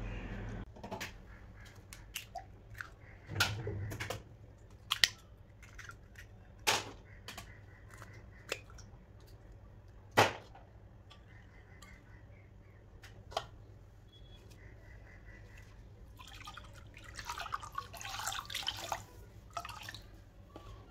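Three eggs tapped and cracked against a glass bowl and dropped in: a string of sharp taps and clicks, the loudest about five, seven and ten seconds in. Near the end, milk is poured into the bowl, splashing for a few seconds.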